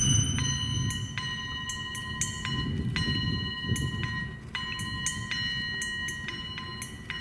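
Atmospheric recorded music for a dance: a held high tone that cuts in and out every second or so over a low rumbling drone, with faint clicks on top.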